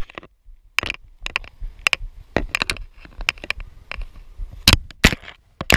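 Irregular sharp clicks and knocks from fly-fishing pincers bouncing against the GoPro Hero4 case, about a dozen taps, the loudest a little before the end.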